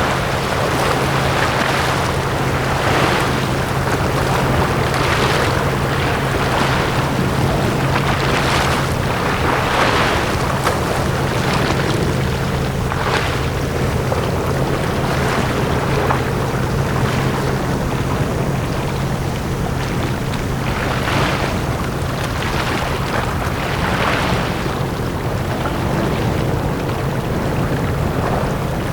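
Small sea waves washing onto a beach in quick repeated surges, over a steady low hum.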